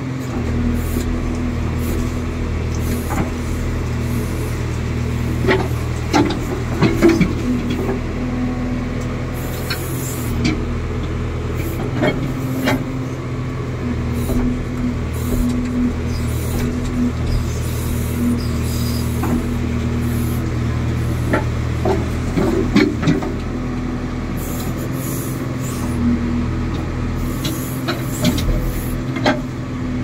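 JCB backhoe loader's diesel engine running steadily while it works, with sharp knocks and clanks now and then.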